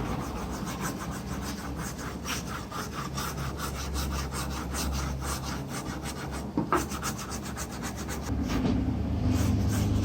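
Rapid back-and-forth rubbing strokes, about three or four a second, from hand-cleaning during a GPU mining rig clean-up, over a low steady hum. There is one sharp knock about six and a half seconds in.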